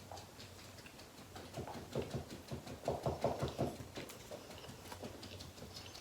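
Close-up mouth sounds of a person chewing food, a run of quick soft chews strongest from about one and a half to four seconds in, then fainter.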